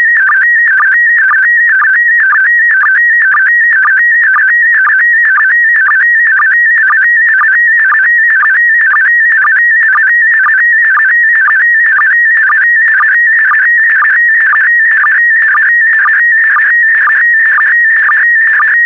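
PD120 slow-scan television (SSTV) signal: a loud, continuous warbling tone that wavers in pitch as it carries picture brightness and colour line by line. The pattern repeats about twice a second, each repeat starting a new pair of image lines.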